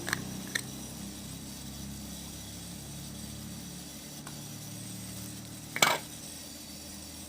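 Handling noises from unboxing a camera and its packaging: two light clicks at the start, a faint tick about four seconds in, and a louder short knock about six seconds in, over a steady low hum.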